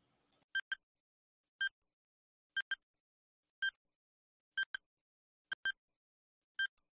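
Countdown timer sound effect: short pitched ticks about once a second, every other one a quick double tick.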